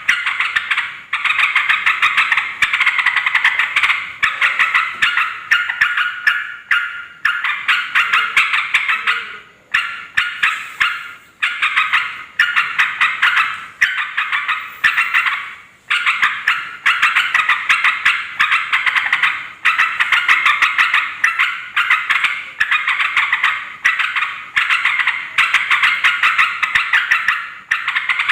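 Yellow-vented bulbuls (trucukan) chattering noisily: fast runs of bright, rapid notes, each run lasting a second or two, with brief breaks between them. This is the calling used to lure wild bulbuls.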